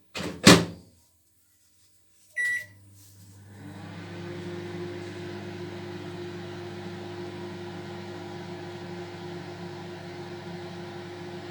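Panasonic microwave oven: a sharp clunk, a single short keypad beep about two seconds later, then the oven starts up and runs with a steady hum.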